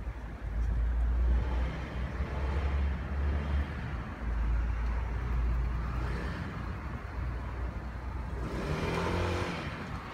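Street traffic: a steady low rumble of cars, with one vehicle passing closer near the end.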